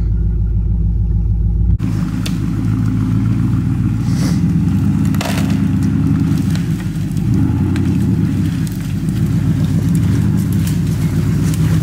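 Chevy Silverado pickup's engine running steadily as the lifted truck crawls through woods, heard first from inside the cab and then, after a sudden change about two seconds in, from outside. A few sharp cracks, like twigs and brush breaking under the tires, come through the rumble.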